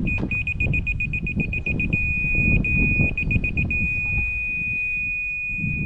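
Laser level receiver on a measuring staff beeping at a high pitch: rapid beeps for about two seconds, broken by short steady stretches, then one continuous steady tone from about four seconds in. The solid tone signals that the receiver sits on the laser's level line.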